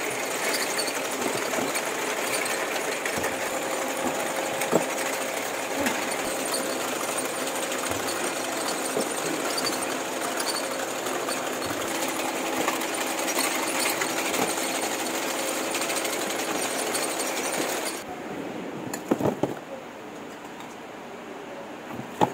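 Packing-line machinery with a conveyor running with a steady, dense rattle and hum. About 18 seconds in it drops suddenly to a quieter hum, and glass jars clink a few times as they are set into a carton.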